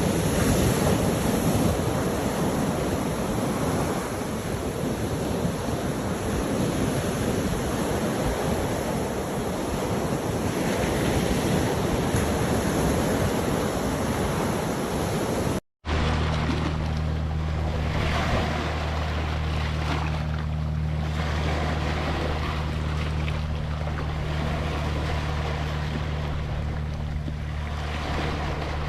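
Ocean surf washing steadily. After a sudden cut about halfway through, the waves go on under a steady low drone.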